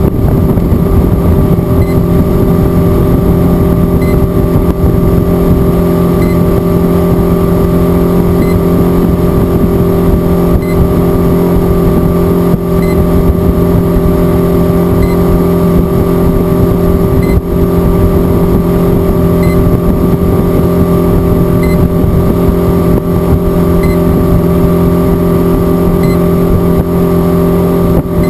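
A boat's motor running at a steady speed, a loud, even drone that holds one pitch throughout.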